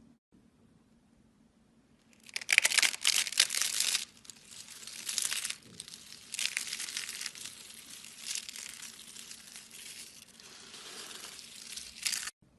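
Crinkling, crackling noise in irregular bursts, starting about two seconds in, loudest at first and cutting off abruptly near the end.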